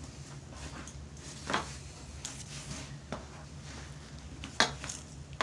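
Handling noise: a few sharp knocks and clacks of things being moved about, the loudest about four and a half seconds in, over a low steady hum.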